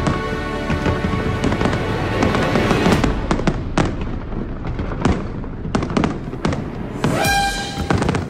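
Fireworks bursting in quick, irregular succession: a steady run of sharp bangs and crackles, with music playing under them. A pitched tone rises and holds about seven seconds in.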